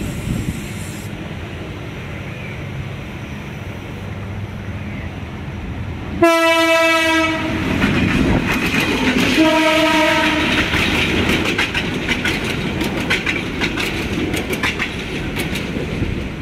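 Bangladesh Railway intercity passenger coaches rumbling past on the rails. A train horn sounds two blasts of about a second each, about six and nine seconds in. Dense clickety-clack of the wheels over rail joints follows.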